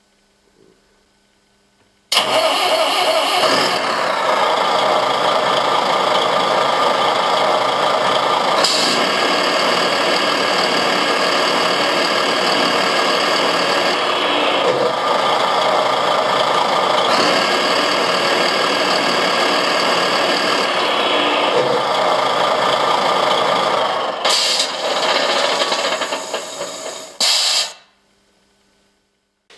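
Servonaut SM7 RC-truck sound module playing a simulated truck engine through a loudspeaker. It starts up abruptly about two seconds in and runs with several step changes in engine speed, with a brief hiss about nine seconds in and again near the end. It shuts off a couple of seconds before the end.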